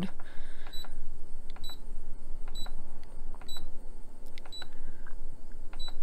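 Ausranvik 12V/110V fridge's control panel giving six short, high beeps, roughly one a second, each with a faint button click. Each beep confirms a press of the set button, which steps the display through its hidden settings codes.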